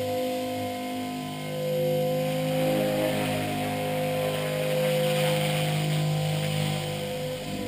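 Blade 450X electric RC helicopter in flight: the steady whine of its brushless motor and the whir of its rotor blades, swelling and easing in loudness as it moves about.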